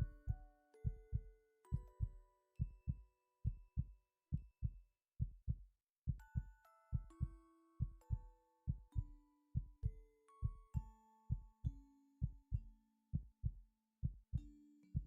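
A person's heartbeat, a steady lub-dub of paired low thumps a little faster than once a second. Soft background music of sustained chime-like notes plays under it.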